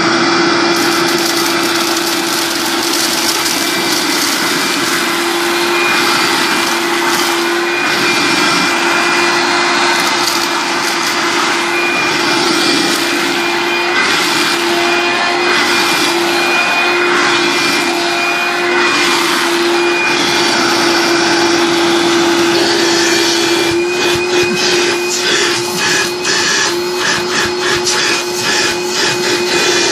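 1986 Hoover Dustette S1122 handheld vacuum running steadily, its small motor giving a steady whine over the rush of air. From a little past the middle, irregular rattling and clicking come in as dry Cheerios are sucked up into it.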